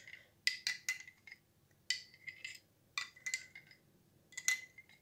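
A metal spoon stirring water and leftover molasses inside a drinking glass, clinking against its sides in irregular clusters of taps, each tap leaving a short glassy ring.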